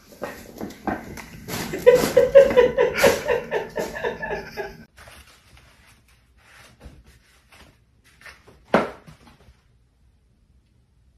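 A person laughing hard in a quick ha-ha-ha for about four seconds, cut off suddenly. Later a single short knock.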